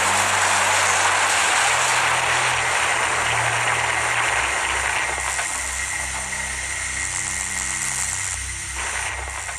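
A loud, steady, rushing engine-like roar, a sci-fi sound effect, thinning out and fading through the second half. Low sustained music notes play underneath.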